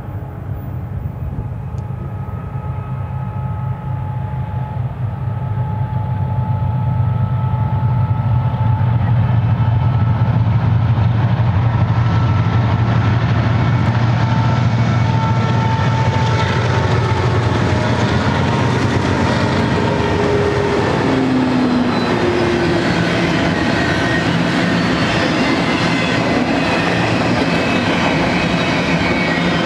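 A BNSF GE ET44C4-led diesel freight consist approaching and passing, its engines a deep, steady drone that grows louder over the first several seconds. After about halfway the drone gives way to the rolling wheel-on-rail noise of double-stack well cars going by.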